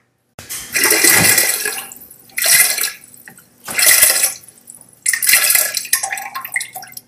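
Cartoon vomiting sound effect: four wet bursts of retching and splashing liquid. The first is the longest, well over a second.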